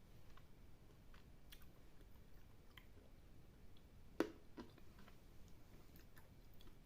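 Faint chewing of milk chocolate with whole almonds, with scattered small clicks and one sharper click about four seconds in.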